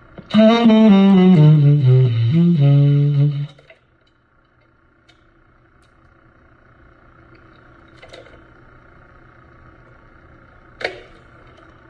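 Selmer Varitone tenor saxophone played through its amplifier: a short phrase stepping down in pitch for about three seconds, then stops. A faint steady hum follows, with a couple of light clicks as the sax-mounted controls are worked.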